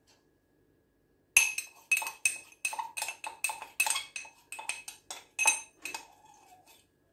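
A small drinking glass clinking about fifteen times in quick, uneven succession, each tap sharp with a short ringing tone, as it is knocked to empty sugar into the mixing bowl. The taps start about a second and a half in and stop about six seconds in.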